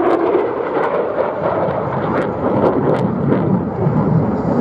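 Jet noise of an F-35 Lightning II on a high-speed pass: a loud, continuous rumble from its single turbofan engine that deepens as the jet goes by.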